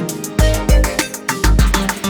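Background music with a steady beat: bass hits and plucked-string-like notes.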